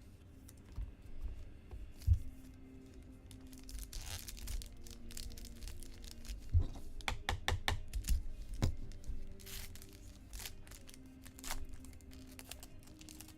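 Trading-card pack wrappers crinkling and tearing, with cards being handled and a quick run of sharp clicks around the middle. Background music plays underneath.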